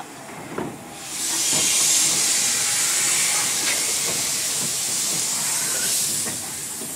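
Steam locomotive venting steam with a loud, steady hiss that starts about a second in and eases off near the end, with a few faint low knocks underneath.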